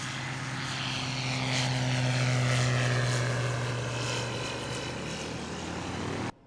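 Belite Chipper's Rotax 912 UL four-cylinder engine and propeller lifting off and climbing past. The drone swells to its loudest about two and a half seconds in as its pitch drops, then fades, and it cuts off suddenly near the end.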